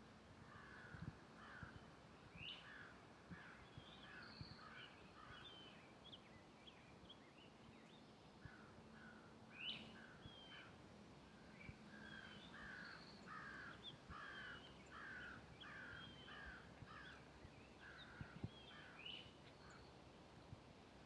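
Crows cawing faintly in bouts of repeated calls, about two or three a second, with smaller birds chirping higher up and a few faint footsteps.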